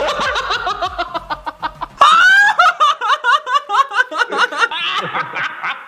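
People laughing hard in rapid, pulsing bursts. A loud, high-pitched burst of laughter breaks out about two seconds in.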